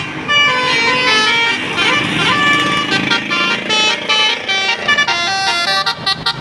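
A bus's basuri musical horn playing a quick tune of stepped notes, each held a fraction of a second before jumping to the next, with a sliding sweep in pitch partway through.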